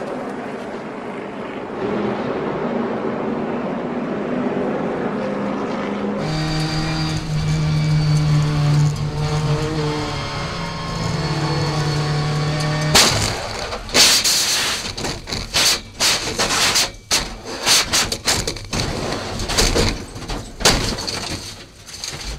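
Race broadcast sound of trucks running after a wreck, then a race car's engine heard from inside the cockpit, running steadily at high revs. About 13 seconds in, a heavy crash begins: a long series of hard impacts and scraping lasting about nine seconds, as the car is wrecked and its windshield smashed.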